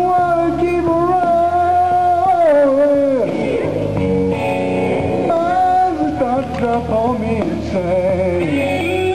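Slow blues music led by guitar, with long held notes that waver and slide downward about three seconds in, then shorter bent phrases.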